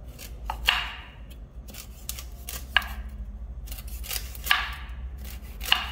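A knife chopping through firm, ripe noni fruit. There are four sharp chops, roughly one every one to two seconds, with lighter knocks in between.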